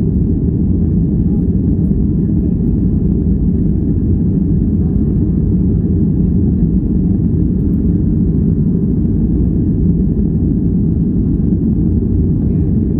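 Steady low roar inside a jet airliner's cabin during the climb after takeoff: engine and airflow noise at climb power, heard from a window seat.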